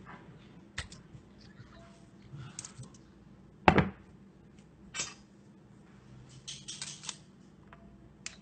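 Handling of an aluminium ice-ball press: a loud metallic clank a little before midway as the heavy upper block is taken off the mould. After it come a lighter knock and a short spell of scraping and rattling as metal tongs take hold of the pressed ice sphere.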